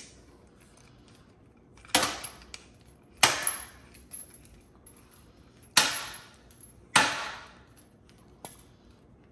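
Four loud metallic clatters from a metal pull-down kitchen faucet and its hose being handled, each sharp at the start and dying away within about half a second, spread irregularly over about five seconds.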